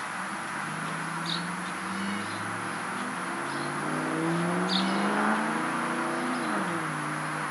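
Engine of a passing motor vehicle: a pitched hum that grows louder toward the middle, then drops in pitch about six and a half seconds in. A few short high chirps sound over it.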